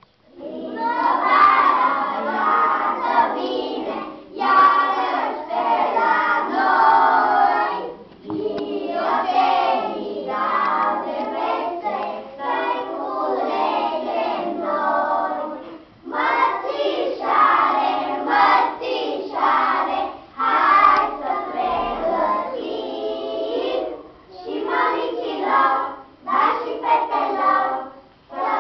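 A group of young children singing together in unison, in short phrases with brief pauses for breath between them.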